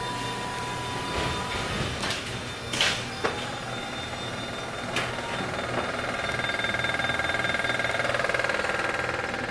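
Clothing being handled, with a few short rustles and knocks, over a steady mechanical hum. An engine-like machine noise grows louder in the last few seconds.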